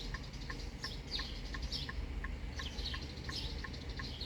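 Rapid, steady electronic beeping, about four short beeps a second, with birds chirping over it.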